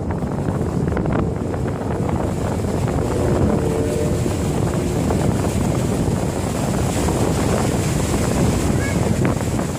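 Steady wind buffeting the microphone over the rush of water along the hull of a boat under way.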